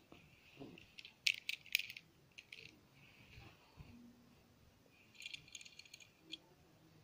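Faint scattered clicks and a light rattle of small hard objects being handled: a few sharp clicks a second or two in, then a quick run of small clicks about five seconds in.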